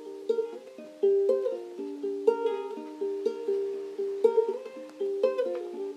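Background music: a plucked string instrument picking a gentle melody, each note struck and dying away.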